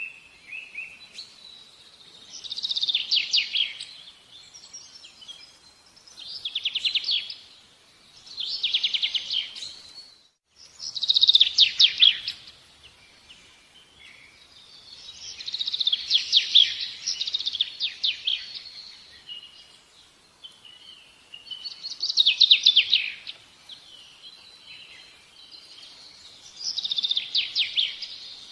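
A songbird singing: about seven fast trilled phrases, one every few seconds, with short chirps between them.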